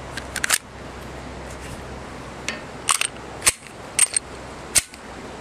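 Sharp metallic clicks and clacks of a Glock 36 pistol being handled and put back together, its slide and parts snapping into place. A quick run of clicks comes about half a second in, then single clicks follow every half second or so.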